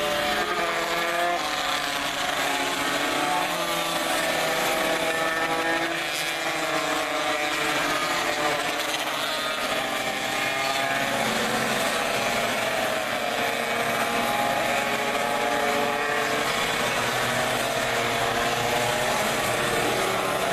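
A pack of classic racing motorcycles accelerating through a corner, many engines revving together with their pitches rising and falling.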